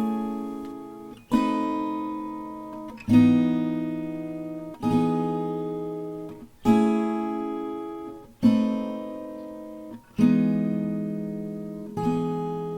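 Background music: acoustic guitar chords struck about every second and a half to two seconds, each left to ring and fade, with no singing, as an instrumental break in a song.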